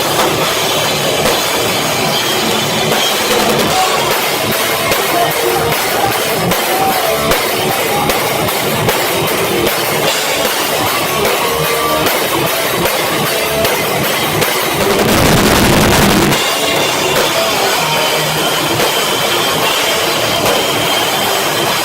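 A live rock band playing loud, with drum kit and distorted guitar, recorded through a cheap cell-phone microphone that makes it harsh and muddy. About fifteen seconds in, a louder noisy surge lasts about a second.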